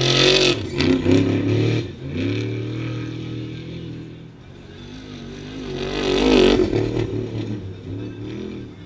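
Off-road desert race trucks passing at speed, engines revving hard. One goes by loudly right at the start, its engine pitch rising and dropping as it shifts, and a second passes about six seconds in.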